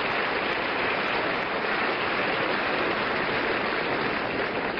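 Studio audience applauding steadily, welcoming a singer after her introduction.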